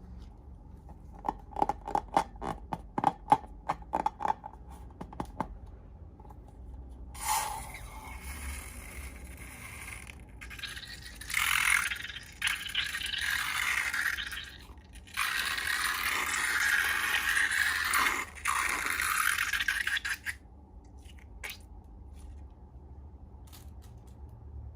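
Hand-made ASMR sounds from slime making: a quick run of sharp clicks, then several long stretches of loud scraping and rustling with short breaks between them.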